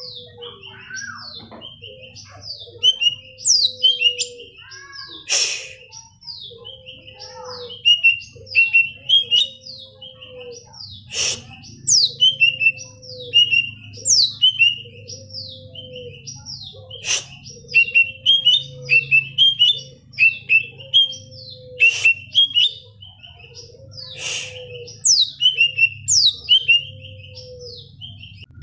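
Cucak ijo (green leafbird) singing: a rapid chatter of quick downward-sliding high notes, broken by sharp loud notes every few seconds. A lower short note repeats about once a second beneath it, over a faint low hum.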